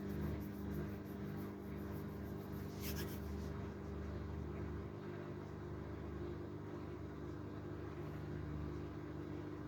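Haier 7.5 kg washing machine running a delicate wash cycle: a steady motor hum over a low drum rumble that drops away briefly a few times. There is a short hiss about three seconds in.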